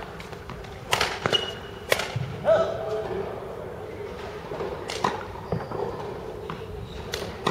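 Badminton racket strikes on a shuttlecock, sharp cracks about a second in, again near two seconds, and twice more later, with a short sneaker squeak on the court floor in between; voices in the background.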